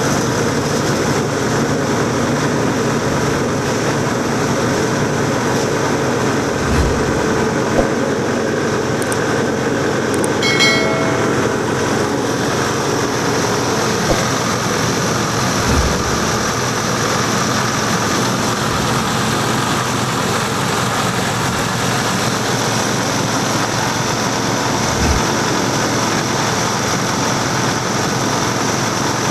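Multifunction grinding mill for husks, corn cobs and dry leaves running with a loud, steady mechanical din. A few low knocks sound through it, and a brief pitched tone comes about ten seconds in.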